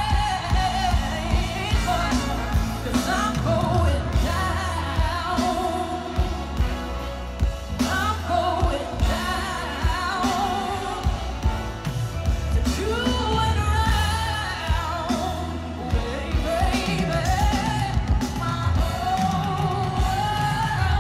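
A woman singing live into a microphone, with long wavering notes and vocal runs, over a piano and a deep bass line, amplified through a stadium sound system.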